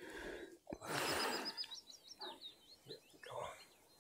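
A small songbird singing one quick phrase of high chirping notes, starting about a second in. Close rustling and handling noises are mixed in, loudest around the same moment.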